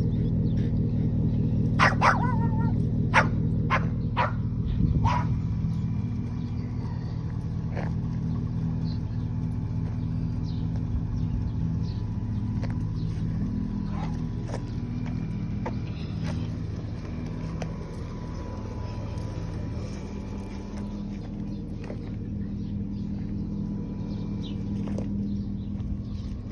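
A dog barks several times, about two to five seconds in, over a steady low droning hum that runs throughout.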